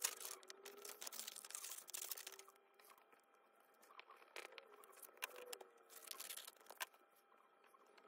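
Faint rustling and rubbing of paper being handled and pressed flat, in two spells, with a few light taps between.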